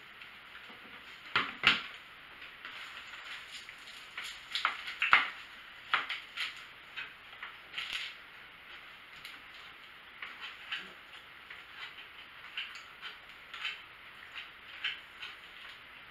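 Quiet, irregular crunching and chewing of battered fried shrimp, heard as scattered small crackles and clicks.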